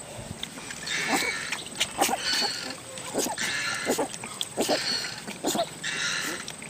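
A litter of puppies lapping and slurping milky food from shallow pans, a busy run of wet slurps, with short squeaks and whimpers from the pups mixed in.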